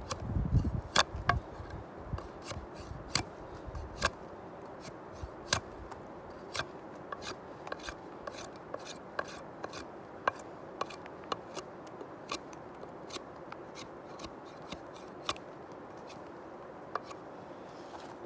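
A blade working a wooden stick: a string of irregular sharp cuts and scrapes, about one or two a second, with a few heavier knocks in the first second.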